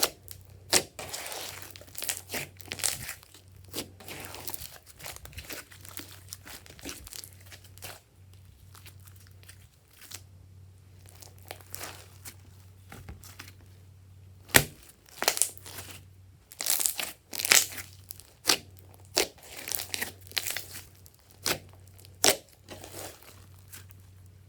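Glossy slime being squeezed, stretched and pressed by hand, giving irregular bursts of sharp popping and crackling clicks with a quieter spell partway through.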